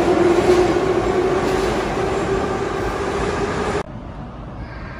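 Kyiv Metro train moving along the station platform: rail and running noise with a steady motor whine, slowly getting quieter as it pulls away. About four seconds in, the sound cuts off sharply to a much quieter platform background.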